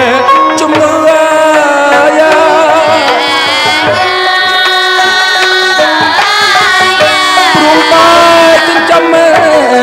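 A song: a voice singing a wavering, ornamented melody over instrumental accompaniment with hand drums.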